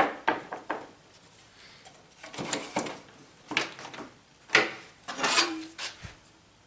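DeWalt one-handed bar clamps being set and squeezed tight on a thin strip of wood on a plywood bench: a sharp click at the start, then a series of separate clicks, knocks and short scrapes. A brief ringing tone near the end.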